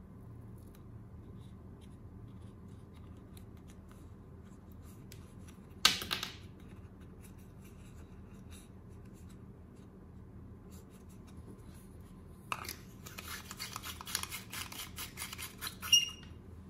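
A sharp plastic snap about six seconds in as the LED bulb's housing is pried at with a utility knife. Later, a run of quick scratchy clicks as the bulb's base is screwed into a plastic lamp holder, ending in a sharp click with a brief high ring.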